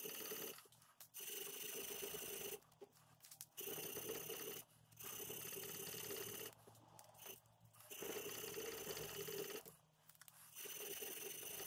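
A strip of sandpaper pulled back and forth against a wooden knife handle to sand it by hand. It makes a fast rubbing in runs of one to two seconds, broken by short pauses.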